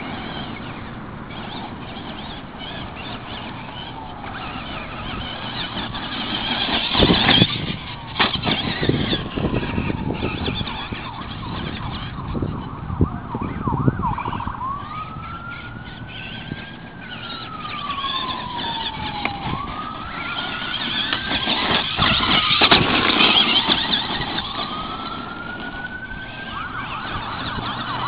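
Electric Traxxas Monster Mutt RC truck running over loose gravel, its tyres hissing and crunching, with a few sharp knocks about seven to eight seconds in. From about halfway a siren wails slowly up and down in the background.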